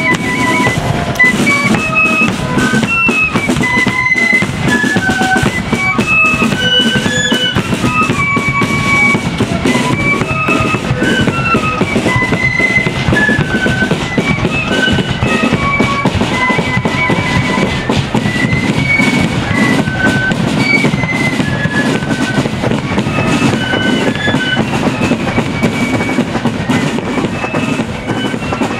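Marching flute band playing a tune: a high flute melody over steady snare and bass drumming.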